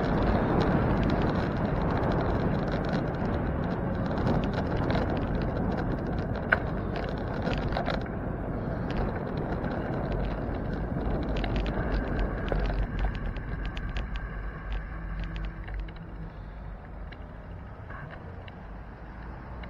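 Wind rushing over the microphone of a camera on a moving bicycle, with scattered ticks and rattles from the bike rolling over the pavement. The rushing is loudest at first and fades over the second half.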